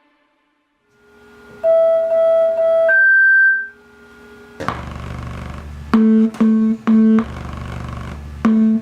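Electronic synthesizer tones: after a second of near silence, long steady tones step up in pitch, then a low drone starts about halfway through, and groups of three short loud tones sound twice near the end.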